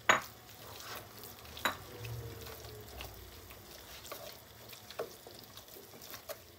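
Wooden spoon stirring chopped tomatoes into berbere paste frying in a stainless steel pot, with a faint sizzle and a few sharp knocks of the spoon against the pot, the loudest right at the start. The tomatoes and berbere are being sautéed together into the sauce base.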